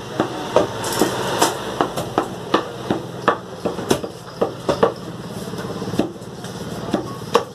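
Meat cleavers chopping meat and bone on wooden chopping blocks: sharp, irregular blows about twice a second, from two butchers working at once. A steady low hum runs underneath.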